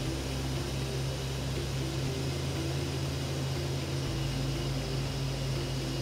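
Atlas Copco XAS 1800 portable air compressor's diesel engine running steadily at about 1,300 rpm after its warm-up, a constant drone.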